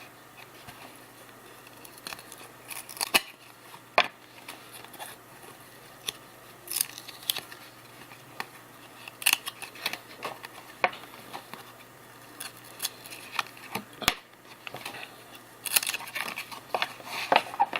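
1992 Classic basketball trading cards being handled and flipped through one by one: irregular short snaps and slides of card stock.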